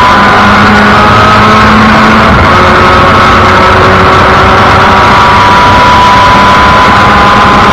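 Formula Mazda race car's rotary engine pulling hard on track, heard loudly from the cockpit over heavy wind and road noise. The engine note breaks about two and a half seconds in, then climbs slowly.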